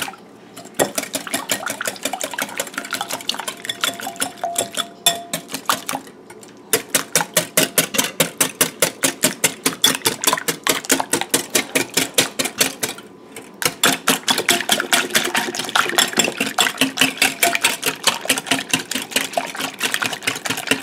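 Wire whisk beating a liquid egg-and-milk mixture in a glass bowl, its wires clicking rapidly and evenly against the glass, several strokes a second. The whisking stops briefly twice, about six and thirteen seconds in.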